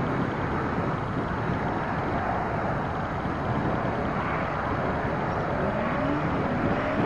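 Engines of a motorcycle-powered dune buggy and a quad running as they drive along a dirt track. A steady engine noise runs throughout, and from about four seconds in the engine pitch rises and falls as they accelerate and ease off.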